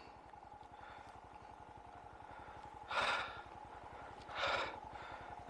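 Two heavy breaths close to the microphone, about three and four and a half seconds in, over the faint low pulsing of a motorcycle engine.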